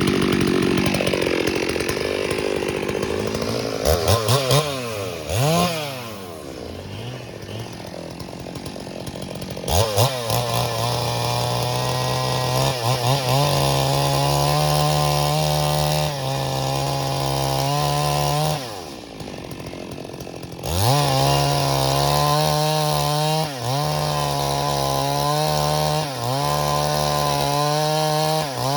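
Stihl MS382 two-stroke chainsaw blipping the throttle a few times, settling to idle, then running at full throttle with repeated brief dips in pitch as the chain bites into dead wood. It drops back to idle for about two seconds roughly two-thirds of the way through, then revs up and cuts again.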